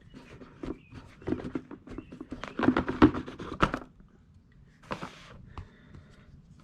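Packaging being handled and opened: a run of sharp clicks and crinkles, then a short rustle about five seconds in.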